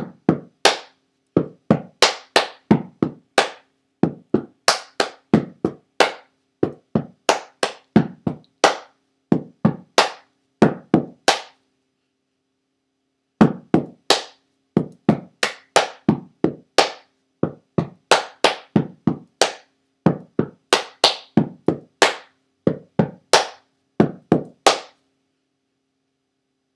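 A cheerleader's rhythmic hand claps and slaps beating out a cheer without the words, sharp and about two to three a second in short groups. They pause briefly near the middle and stop near the end.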